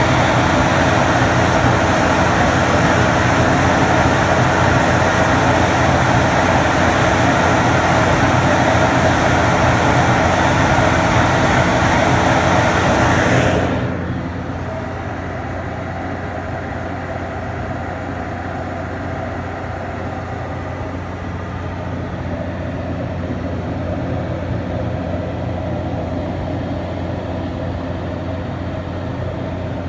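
Heavy farm machinery running with a steady drone and a constant low hum. About 14 seconds in, the hiss and high sound drop away suddenly, leaving a duller, quieter drone.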